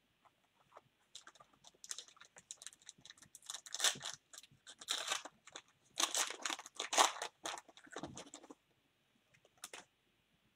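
Foil wrapper of a Panini Prizm baseball hobby pack being torn open and crinkled by hand: a run of sharp crackles, loudest in the middle, then a single click near the end.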